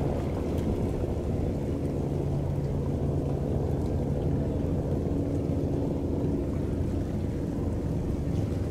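High-speed passenger ferry running at speed: a steady low engine hum with the rush of water from its bow wave and wake.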